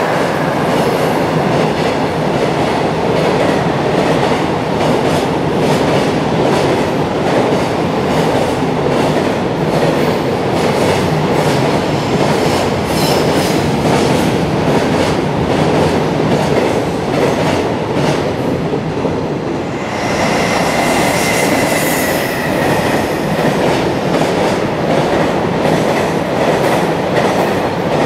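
Long freight container trains passing at speed: a continuous loud rumble with the clatter of wagon wheels over rail joints. About twenty seconds in a second freight train passes as well, and the sound changes, with a brief high whine.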